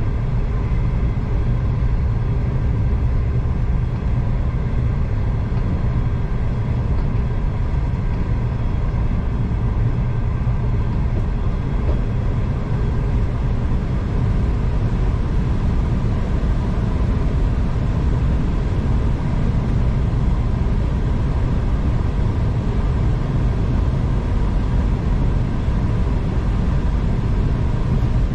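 V/Line passenger train running along the line, heard from inside the carriage: a steady low rumble with a faint constant hum over it.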